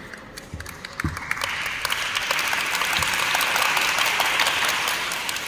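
A group of people applauding, the clapping building up about a second in and easing off near the end. A few soft low thumps come in the first second.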